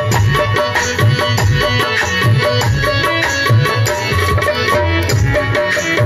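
Live Krishna bhajan music: an electronic keyboard playing the melody over a steady drum beat.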